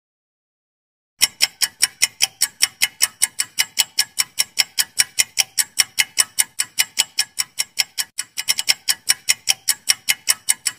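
Clock-ticking sound effect for a quiz countdown timer: sharp, even ticks at about five a second, starting about a second in.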